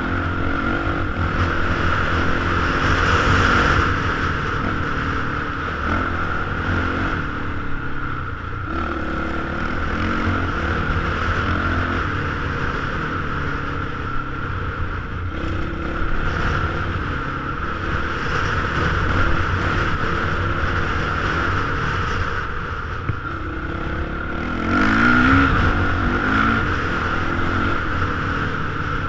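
Dirt bike engine running under way on a trail, its pitch rising and falling again and again as the throttle is worked, with a sharper rev-up about 25 seconds in. Heard from a helmet-mounted camera.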